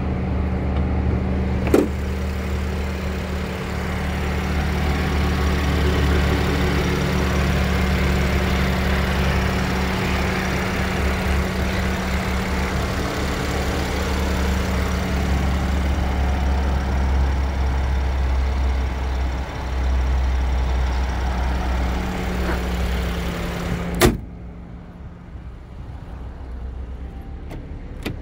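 Mercedes-AMG C43's 3.0-litre twin-turbo V6 idling steadily with the hood open. Near the end the hood slams shut with a single sharp bang, and the idle becomes muffled and quieter.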